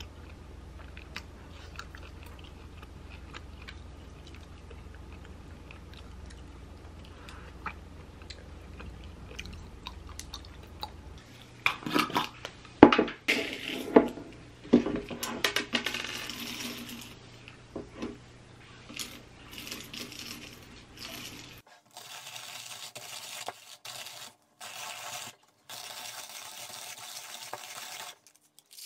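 Faint eating sounds at first. About eleven seconds in, whole coffee beans start clattering and rattling as they are scooped from a glass jar and poured into a wooden hand-crank coffee grinder. From about 22 s the grinder is cranked, crunching the beans in a steady rasping grind with brief pauses.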